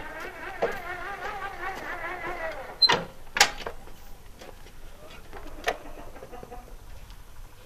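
Small motorcycle being pulled off its stand and pushed by hand: two sharp metal clanks about three seconds in, another near six seconds, and light rattles as it rolls.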